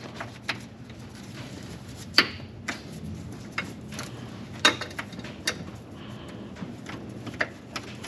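Clicks and knocks of a Lisle spring-loaded oil filter wrench being worked onto a small spin-on oil filter in a cramped engine bay. There are two louder clacks, about two seconds and four and a half seconds in, over a low steady hum.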